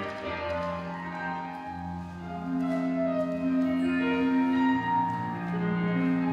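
Instrumental background music of long held notes that change pitch every second or two.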